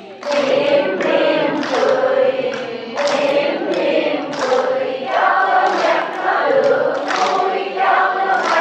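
A congregation singing a short Vietnamese song together, many voices in unison, line by line.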